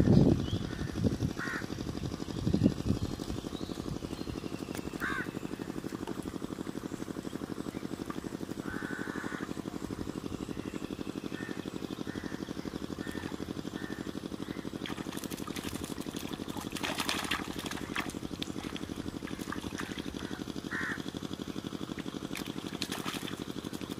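Water sloshing and splashing as a bamboo-and-mesh prawn trap is handled and lifted out of pond water, over a steady low hum, with birds calling now and then.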